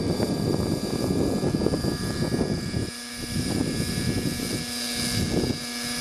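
Align T-Rex 600 Nitro radio-controlled helicopter hovering: its nitro engine and spinning rotors give a steady high-pitched whine. A heavy low rumble over the first half drops away about halfway through, leaving a clear steady lower tone.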